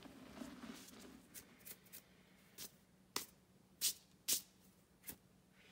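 Pink-dyed gym chalk crushed and crumbling in the hands, a soft powdery rustle, then about eight sharp pats of chalky hands, the two loudest a little past the middle.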